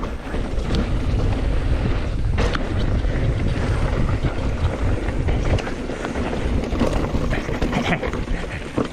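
Wind rushing over the camera microphone as a mountain bike rolls down a dirt trail, a heavy low rumble that eases somewhat after about six seconds, with scattered clicks and knocks of the bike on the rough ground.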